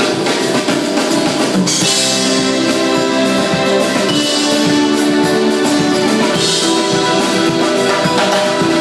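Rock band playing live, instrumental with no singing: drum kit with bass drum, snare and cymbal crashes over held guitar and keyboard chords.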